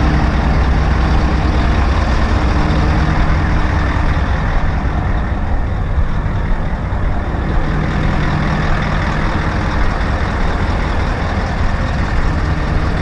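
Diesel engine of a Tadano ATF 180G-5 all-terrain crane running steadily, a loud low rumble with an even hum.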